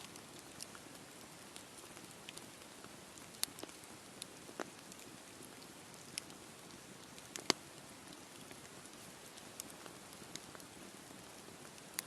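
Wood campfire burning: a steady soft hiss with scattered sharp crackles and pops from the burning wood, the loudest about seven and a half seconds in.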